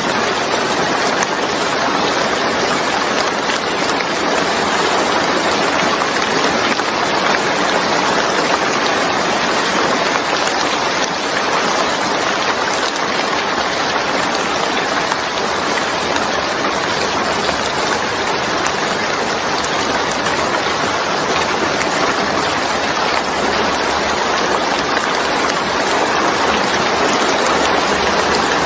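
Steady, heavy rain falling, a dense continuous hiss of drops with no separate patter or thunder.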